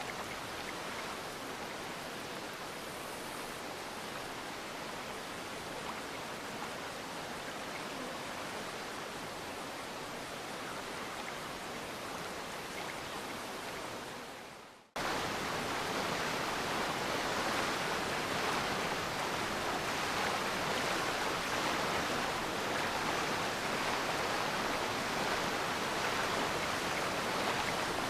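Steady rushing noise, like running water or hiss, that fades out about halfway through and cuts straight back in louder and brighter.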